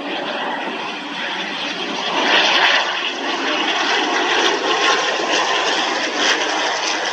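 Twin turboprop engines and propellers of an ATR 72 airliner on landing, a steady loud noise that grows louder about two seconds in as the plane passes close and settles onto the runway.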